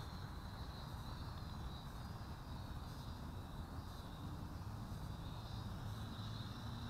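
Syma X5C toy quadcopter's brushed coreless motors buzzing faintly, a thin high whine that wavers slightly in pitch, over a low rumble of wind on the microphone.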